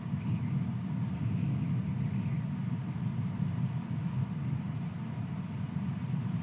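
Wind rumbling on an outdoor nest-camera microphone, a steady low noise that swells and eases in gusts.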